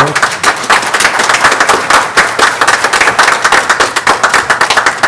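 An audience applauding, many hands clapping at once in a dense, loud run.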